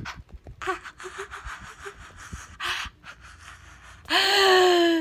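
A young woman's breathy gasps and rustling for about four seconds, then a sudden loud, held scream of excitement.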